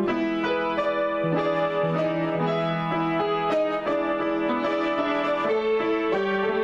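Piano playing an improvised passage: a steady flow of notes over held chords, without a break.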